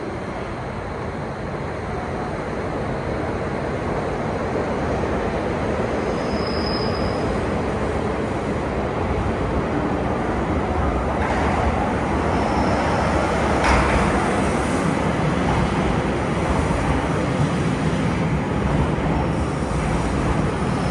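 JR Hokkaido 789 series electric express train pulling into the platform, its running rumble growing steadily louder as it nears and draws alongside. A few short, high brake squeals and a brief crack about two-thirds of the way through.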